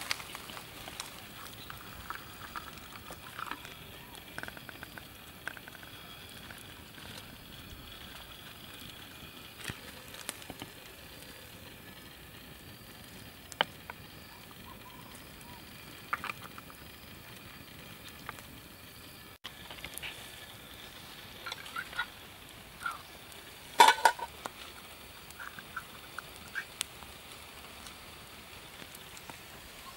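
Small twig campfire crackling softly, with scattered sharp clicks and knocks; the loudest comes a little after two-thirds of the way through.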